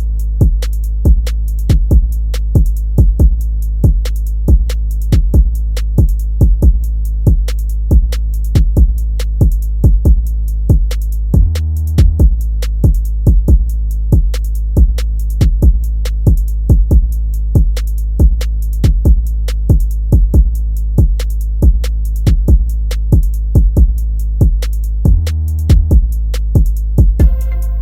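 Background hip hop beat: drum machine hits about twice a second over a sustained deep bass, which drops out briefly twice.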